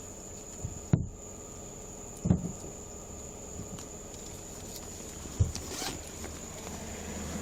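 Three dull thumps, about a second, two and a half seconds and five and a half seconds in, with light rustling between, over a steady faint high-pitched whine.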